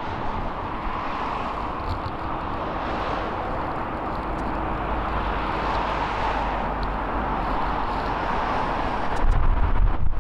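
Jet airliner engines heard from a distance: a steady rushing noise that swells slightly through the middle. Wind buffets the microphone near the end.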